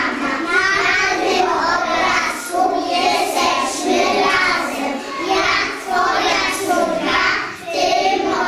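A group of preschool children singing a song together in chorus.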